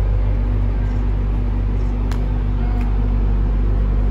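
Steady low machine hum with a constant tone, heard inside an enclosed Ferris-wheel gondola. A single sharp click comes about two seconds in.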